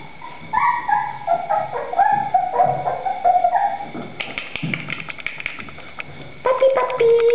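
A litter of three-week-old puppies whimpering and yipping in a string of short high cries. A run of quick clicks comes about four seconds in, and another cry comes near the end.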